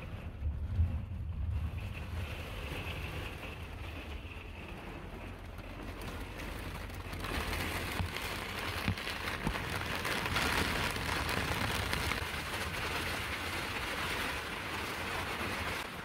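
Heavy storm rain pouring down, heard from inside an RV, with some wind. The downpour grows louder about seven seconds in.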